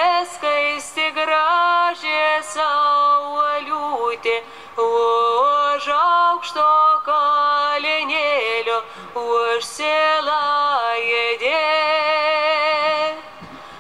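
A woman's singing voice in a slow song, holding long notes with vibrato and stepping up and down between pitches. It drops quieter near the end.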